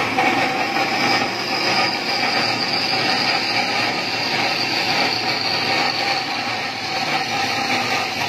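Datyso 400B automatic-feed burr-free cutting machine running, its motor-driven circular blade giving a steady whine over constant mechanical noise.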